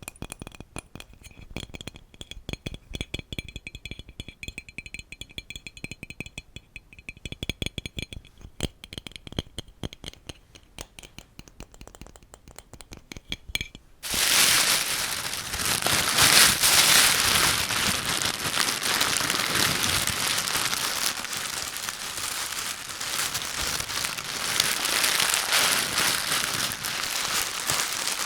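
Close-miked ASMR trigger sounds: quick light tapping and clicking with a faint high ringing, then about halfway through an abrupt switch to loud, continuous, dense crinkling.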